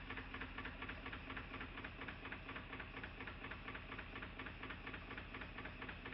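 Mamod TE1A toy steam traction engine's oscillating-cylinder engine running with a steady, rhythmic knocking. The crankshaft bracket is badly bent, so the crankshaft is out of line with the cylinder.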